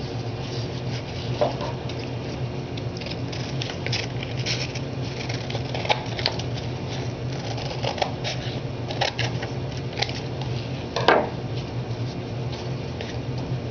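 Scissors cutting and trimming 220-grit wet-or-dry sandpaper glued to a foam sanding block, heard as scattered crisp snips and paper crackles, with a louder clack about eleven seconds in.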